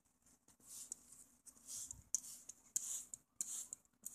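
Spray bottle squirting water mist: about five short hissing squirts in quick succession.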